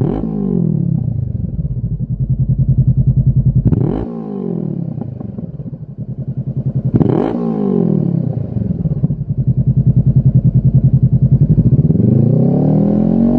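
Honda CB500F's parallel-twin engine through a Lextek XP13C aftermarket silencer, revved on the stand: quick throttle blips at the start and again about four and seven seconds in, each dropping straight back to a steady idle. Near the end the revs climb again more slowly.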